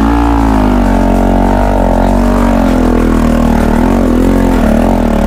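Bajaj Pulsar NS200's single-cylinder engine running at low speed on a rough rocky trail, its note rising and falling a little as the throttle is worked.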